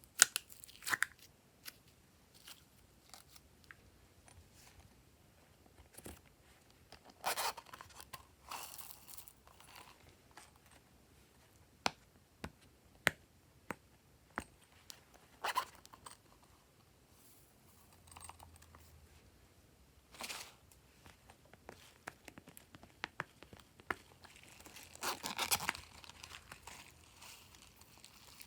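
Glossy slime being mixed and stretched by hand: scattered sticky pops and clicks, with a few longer crackling, tearing stretches, the longest near the end.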